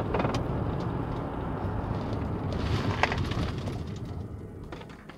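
2017 Ford Flex driving, heard from inside the cabin: steady road and tyre rumble with engine noise, a brief clatter about three seconds in, dying down near the end. No brake squeal; the freshly replaced rear brakes sound okay.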